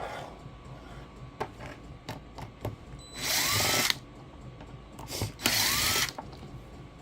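Power drill running in two short bursts of just under a second each, its motor spinning up at the start of each. A few light clicks and knocks come between them.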